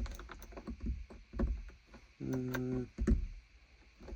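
A few light clicks and knocks as an old festoon bulb is pulled from a car's interior dome-light clips, with a short steady low hum about halfway through.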